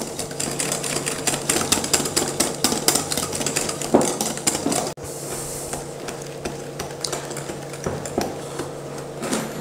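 Wire balloon whisk beating egg white, sugar and lemon juice by hand in a glass bowl: rapid, steady clicking of the wires against the glass as the icing is whipped until foamy and white. The clicking gets quieter about halfway through.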